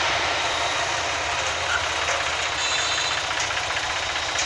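Farm tractor's diesel engine running steadily, a dense mechanical rumble.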